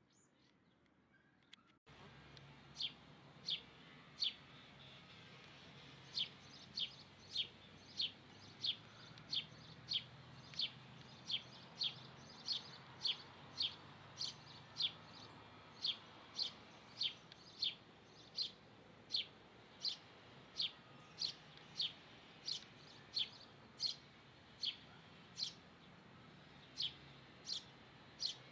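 A bird calling over and over with a short, sharp, high chip, about two a second, starting about two seconds in over a faint low background hum.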